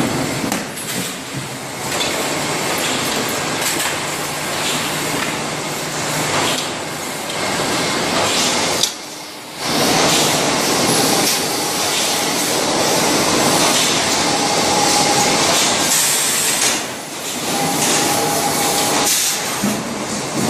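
Dual-position multi-spot mesh welding machine at work: a loud, steady hissing mechanical noise with occasional knocks. The noise drops away briefly about nine seconds in.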